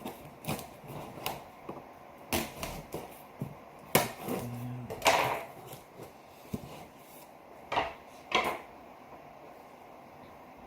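Handling sounds from unpacking a parcel: scattered light taps, knocks and rustles, with a few louder, brief scraping or crinkling sounds around the middle.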